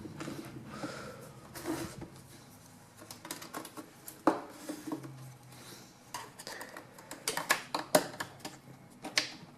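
Plastic pry tool working around the edge of an Asus Q551L laptop's screen bezel, making scattered sharp plastic clicks and snaps as the bezel's clips are worked loose from the metal back cover, with a quick cluster of clicks near the end.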